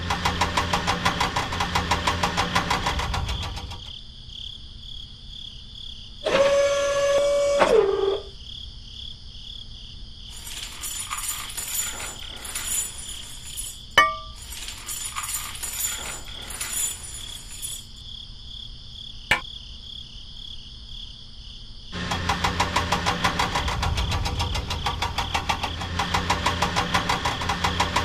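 An engine sound for a toy excavator runs with a fast, even pulsing rumble, stops after about four seconds, and comes back in the last six seconds. Between the two runs there is one long horn-like honk that drops in pitch as it ends. After it come light clinks and clicks of a small metal chain being hooked onto the tow hook of a toy dump truck, with a sharp click in the middle.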